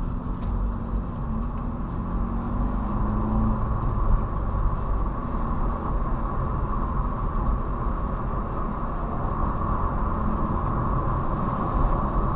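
Steady engine and road noise of a car driving, heard from inside the cabin through a dashcam's microphone, with a low hum that fades away a few seconds in.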